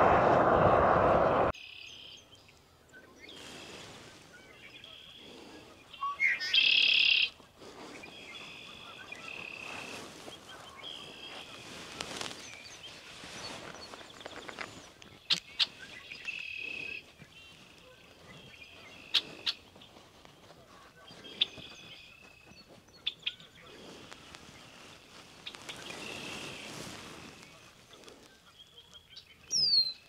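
A loud roadside rushing noise cuts off suddenly about a second and a half in, giving way to songbirds calling and singing in bare shrubs, with short high calls and trills throughout and one louder song about six to seven seconds in.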